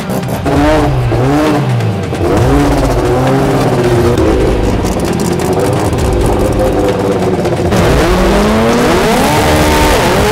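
Drag race car engine revving up and down in sharp blips, then holding a steady rev. Near the end it accelerates hard, its pitch climbing, with a drop and a fresh climb that marks an upshift.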